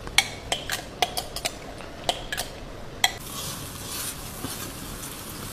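A metal spoon clinks and knocks a string of times as chopped onion, chili, ginger and garlic paste is scraped from a glass jug into hot oil in a wok. From about three seconds in the paste sizzles steadily in the oil as it is stirred and sautéed.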